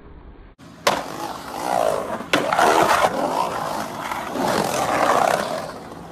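Skateboard wheels rolling and carving across a concrete bowl, swelling and fading as the board rides up and down the walls. Sharp clacks of the board come about a second in and again near two and a half seconds.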